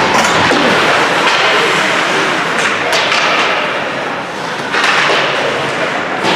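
Ice hockey game play in a rink: a steady noisy wash with a few sharp knocks and thuds, the loudest right at the start and again near the end.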